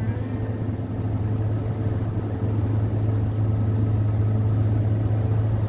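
A small boat's motor running steadily at low speed, a constant low hum over a wash of wind and water noise.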